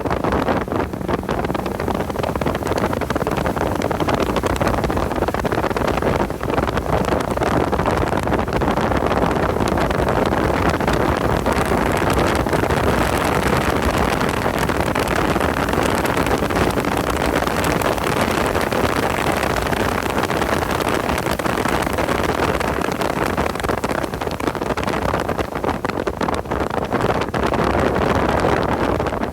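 Porsche 986 at speed on track, heard from on board: heavy wind noise over the microphone, with the car's flat-six engine and tyre noise beneath.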